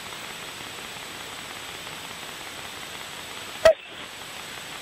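Steady background hiss of a sports-match recording, with no distinct event in it, and one sharp click about three and a half seconds in where the footage cuts to another clip.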